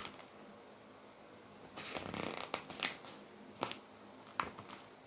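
Pages of a picture book being handled and turned: paper rustling for about a second, then a few short taps and clicks as the book is moved.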